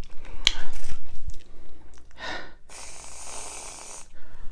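Aerosol can of whipped cream spraying onto a pickle: a steady hiss lasting just over a second, starting a little under three seconds in. Before it come a short click and breathing sounds.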